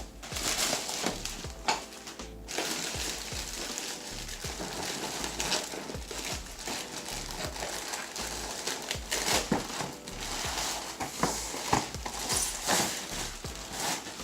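Packaging rustling and crinkling, with many scattered clicks and knocks, as LED studio light panels are unpacked from their boxes, over background music.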